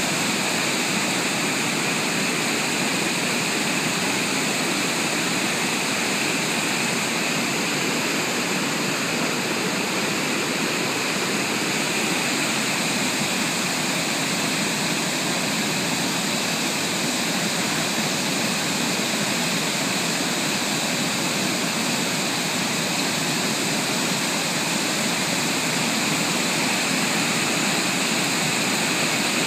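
Water pouring over a weir, a steady, unbroken rushing roar.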